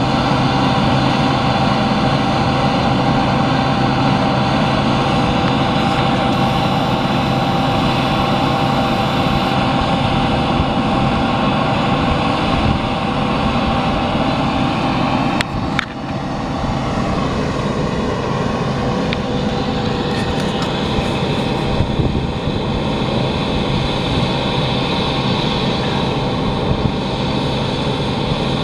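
Two tractors running steadily under load while a tractor-mounted Koro Field Topmaker with a Universe rotor fraze mows the turf surface, its conveyor throwing the stripped material into a trailer; a dense, even machine drone with a couple of steady held tones. A short click and a brief dip in the noise come a little past halfway.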